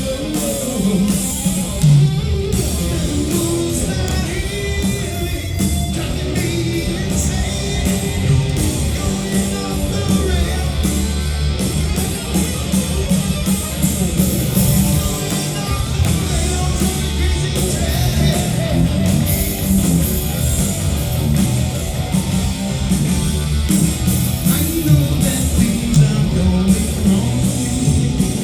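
Live rock band playing loud, with electric guitars, heavy bass and drums, and a singer's voice in the mix.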